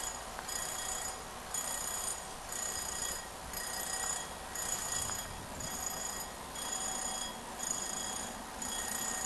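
Railway warning bell ringing in even strokes, about one a second, signalling an approaching train at a level crossing.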